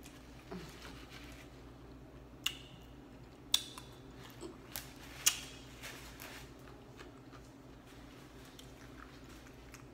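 A person eating leftover bits of chicken pot pie close to the microphone: quiet chewing and finger-licking mouth sounds broken by a few sharp clicking smacks, the loudest about three and a half and five seconds in.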